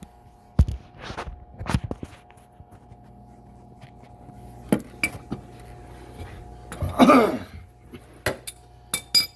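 Scattered metallic clinks and knocks of hand tools being handled, with a short scraping rustle about seven seconds in, over a faint steady hum.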